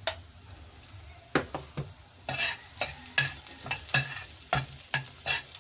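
Chopped garlic sizzling in hot oil in a stainless steel saucepan while a spoon stirs it, clinking and scraping on the pan. The sizzle and clinks grow louder about two seconds in, the clinks coming about three times a second.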